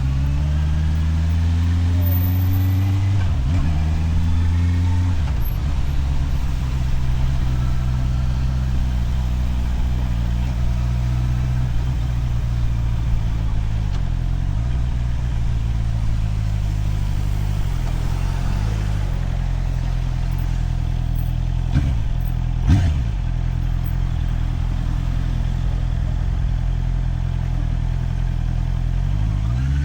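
Motorcycle engine running under way, rising in pitch over the first few seconds as it accelerates, then holding steady with a few brief dips as the revs change. A single sharp knock a little over two-thirds of the way through.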